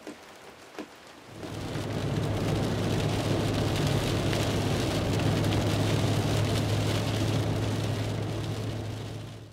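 A few faint ticks, then from about a second in, rain on a car's windshield over the steady low drone of the car driving on a wet road, fading out at the end.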